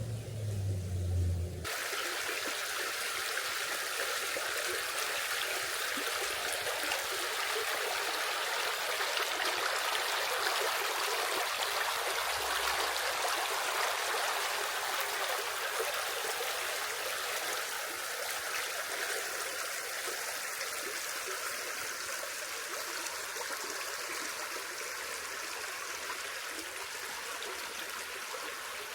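A forest river flowing, a steady rush of water that starts abruptly about two seconds in, after a brief low rumble.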